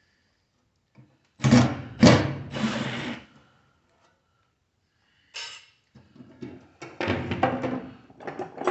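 Tool-on-metal work on an upside-down microwave's turntable motor: three loud bursts of scraping and clatter about a second and a half in, then scattered clicks and short rattles.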